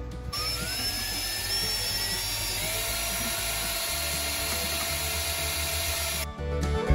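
Cordless drill running, its whine rising in pitch as the motor spins up in the first second, then holding steady for several seconds before it stops shortly before the end.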